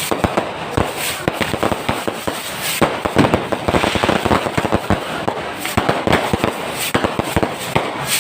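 Fireworks and firecrackers going off in a dense, continuous barrage of rapid, irregular cracks and bangs, with crackling hiss between them.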